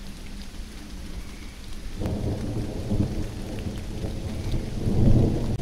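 Field recording of a thunderstorm: steady rain, with a low rumble of thunder setting in about two seconds in and growing louder near the end.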